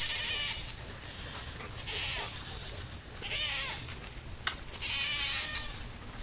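Four short, wavering, high-pitched animal calls, roughly a second and a half apart, with a single sharp click about four and a half seconds in.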